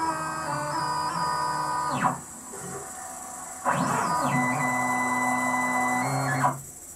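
Gatton CNC's stepper motors whining in several steady tones as the gantry jogs. One move dies away with a falling sweep about two seconds in. After a short lull a second move starts with a rising sweep near the four-second mark, holds steady, and stops shortly before the end.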